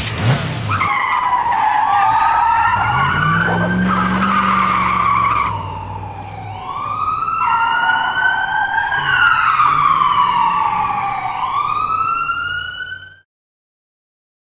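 Police car siren wailing up and down in slow rising and falling sweeps, opening with a short tyre screech. It cuts off suddenly about a second before the end.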